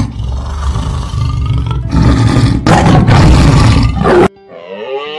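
Tiger roaring, a loud, deep, rough roar in two long surges, cut off abruptly about four seconds in. A drawn-out pitched call starts near the end.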